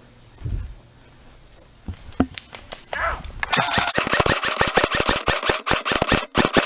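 Airsoft guns firing: a few single shots, then from about three and a half seconds in a fast burst of rapid shots, about eight a second.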